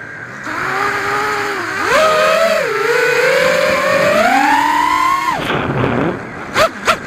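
Brushless motors and propellers of a Realacc XS220 FPV racing quadcopter, driven by Racerstar Labs 28A ESCs, whining as they spin up. The pitch jumps sharply on a punch of throttle at takeoff, wavers, then climbs higher. It cuts off suddenly as the throttle is dropped for a flip, followed by two short bursts of throttle near the end.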